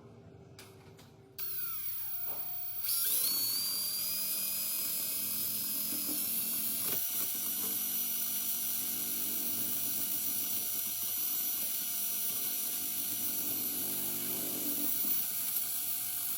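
Small high-speed power tool motor spinning up about three seconds in, with a rising whine, then running steadily with a high-pitched whine.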